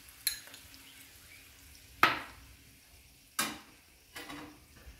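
Four sharp clinks and knocks of metal kitchen utensils against a stainless frying pan, over faint sizzling of butter melting in the hot pan.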